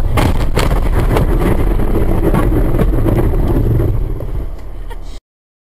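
Loud rumble of a car jolting over rough ground as it swerves off the road toward the curb, with repeated knocks and rattles. The noise eases about four seconds in and stops abruptly about a second later.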